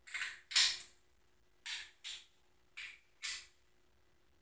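Click-type torque wrench clicking off on the intake manifold stud nuts of a small-block Ford, three pairs of short clicks with pauses between. Each nut clicks off the moment force is applied, with no travel, so the nuts are at full torque.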